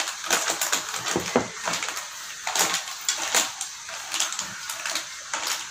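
Irregular clicks and clatter of hard objects being handled during cooking, a few sharp knocks in no steady rhythm.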